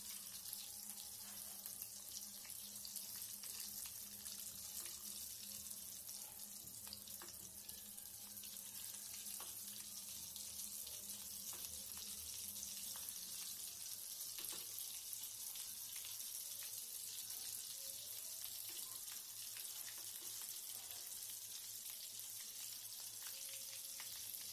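Batter-coated potato vadas deep-frying in hot oil in a kadhai: a steady sizzle with many small scattered crackles.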